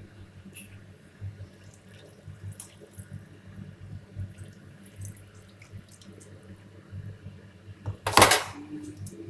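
Water, the rinse from a mixer-grinder jar, poured into the sambar pot in one short splash about eight seconds in, after a few light clinks, over a low steady hum.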